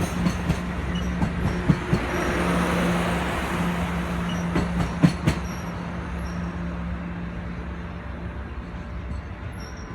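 Passenger train with a diesel locomotive rolling out, the engine running steadily while the wheels click sharply over rail joints several times in the first half. The sound slowly fades as the train moves away.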